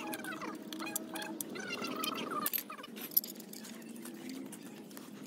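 Scattered light metallic clinks and rattles of small metal parts being handled, over a faint steady hum.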